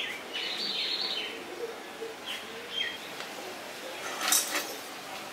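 Small birds chirping, with a few short falling chirps, and a brief clatter about four seconds in.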